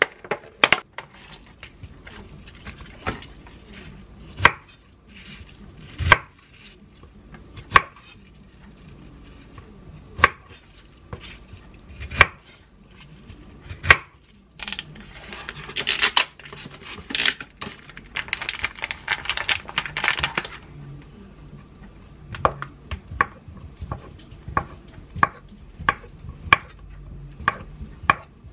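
Chef's knife cutting bok choy on a wooden cutting board: sharp single knocks a second or two apart, with a stretch of rustling handling noise about halfway through. In the last few seconds the knocks come quicker as the knife slices chicken-breast sausage into small rounds.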